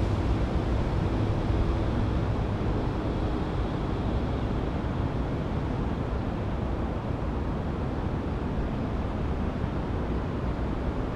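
Wind buffeting the camera's microphone: a steady low rumble with hiss above it, and no distinct sounds standing out.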